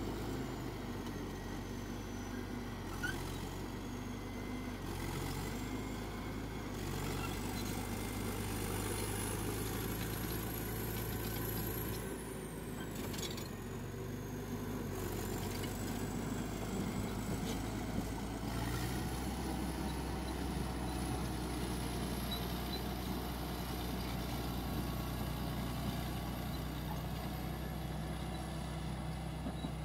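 Diesel engine of a Caterpillar crawler bulldozer running steadily, with its engine note shifting about two-thirds of the way through and a faint high whine drifting up and down.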